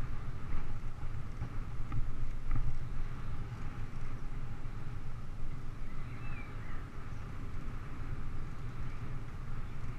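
Steady, fluttering rumble of wind and tyre noise on a bicycle's handlebar-mounted camera as it rolls along a paved path, with faint bird chirps about six seconds in.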